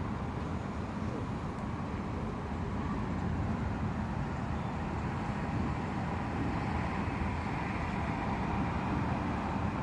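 Steady low rushing noise of a thunderstorm: rain, with no thunder crack or sudden strike.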